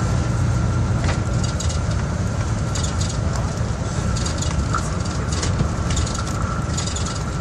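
Inside a moving Greyhound diesel motorcoach: a steady low rumble of engine and road, with frequent light rattles and clicks and a faint steady whine.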